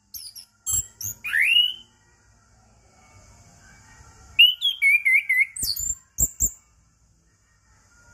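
Orange-headed thrush singing in two bursts of varied whistles, rising glides and quick chirps, one about a second in and a longer one about four and a half seconds in, ending with two sharp clicks.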